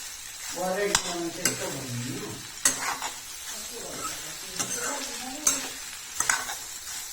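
Sliced homemade sausage sizzling as it fries in hot oil in a pan, with sharp clicks now and then from a utensil stirring it against the pan.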